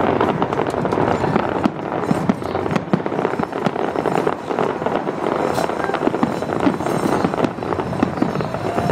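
Aerial fireworks display: a dense, continuous run of bangs and crackling pops from bursting shells.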